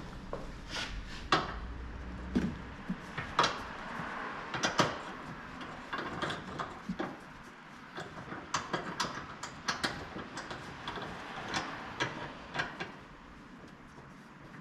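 Irregular metallic clinks and knocks of hand tools and metal parts being handled during suspension work, some a few seconds apart and some in quick clusters. A low rumble underlies the first few seconds.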